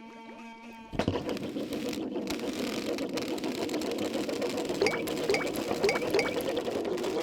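Cartoon foley sound effects. About a second of short pitched musical notes, then a steady busy mechanical clatter, with four short squeaks about five to six seconds in.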